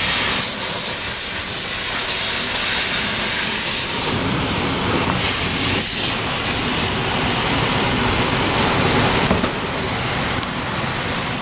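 Fire hose nozzle spraying water at close range: a loud, steady rushing hiss of the water stream.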